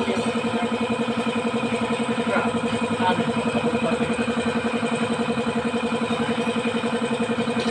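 A small engine idling steadily with an even, rapid beat, with a couple of faint knocks about two and three seconds in.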